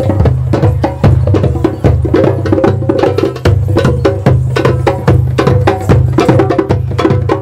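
Music with a fast, busy percussion beat over a steady bass line.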